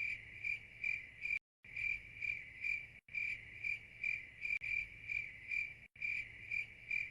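Cricket chirping steadily, about two to three short high chirps a second, with brief silent gaps every second and a half or so.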